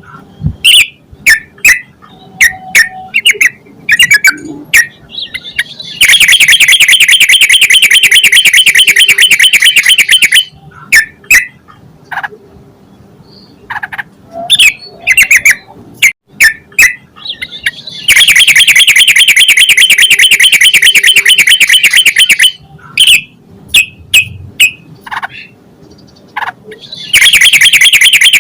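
Yellow-vented bulbul song: short separate chirps alternating with long, loud, fast chattering runs of about four seconds each, starting around six seconds in, again around eighteen seconds in, and near the end.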